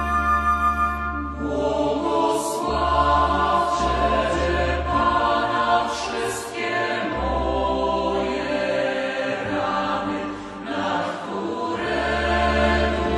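A choir singing a Polish liturgical song over a steady low bass accompaniment. A sustained instrumental passage ends about a second in, and the choir enters with clear sibilant consonants.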